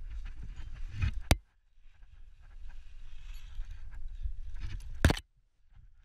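A climber's hands and gear scraping and rustling against granite, with a steady low rumble of wind on a body-worn camera's microphone. There are two sharp knocks, about a second in and near the end, each followed by a brief near-silent gap.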